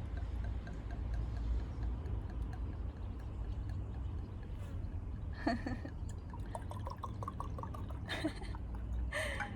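Wine being poured from a bottle into glasses, with a few short sharper sounds along the way.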